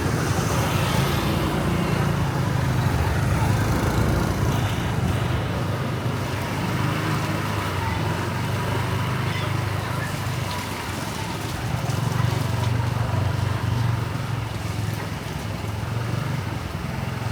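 Steady street traffic: the engines of motorbikes and cars running past in a continuous wash, with no single vehicle standing out.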